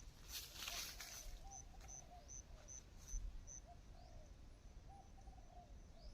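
Faint bird calls: a run of short high pips, about two and a half a second, that stops a little past halfway, over soft low arched notes repeated throughout. A brief rustle sounds about half a second in.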